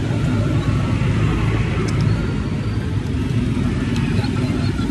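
Steady low rumble of motor-vehicle traffic and engines running nearby, with two faint clicks about two seconds apart.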